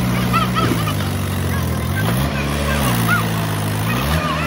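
Tractor diesel engine hauling a heavily loaded sugarcane trolley through mud. Its speed steps up about two seconds in, drops back, then rises again near the end.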